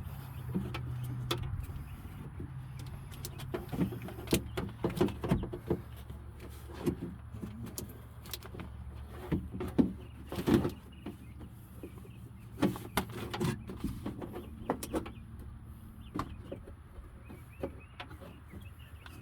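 Irregular clicks, taps and light knocks of plastic and metal as door lock cables and parts are handled and pushed through the inside of a car door, over a steady low hum.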